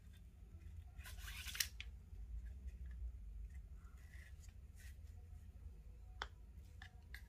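Gutted paracord being drawn through a cobra knot and pulled tight by hand. It gives a rasping swish about a second in, a few fainter rubs after that, and a small click near the end.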